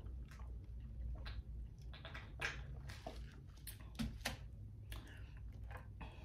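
Quiet eating sounds: sips and swallows from a plastic cup, the cup set down, then crab legs being handled on a plate, heard as a scatter of faint clicks and small wet sounds over a low steady hum.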